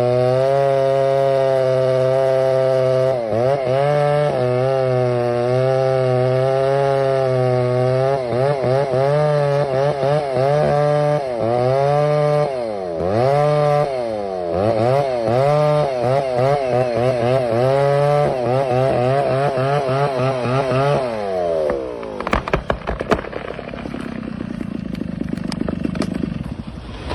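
Chainsaw running at high revs while cutting into a burnt tree trunk, its pitch dipping again and again as the chain loads up in the wood. About 21 seconds in, the revs fall away, and a run of sharp cracks and knocks follows.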